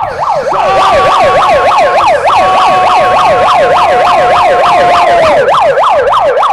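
Handheld megaphone's built-in siren sounding a fast yelp, its pitch sweeping up and down about three to four times a second. A steady held tone runs under it and stops about five seconds in.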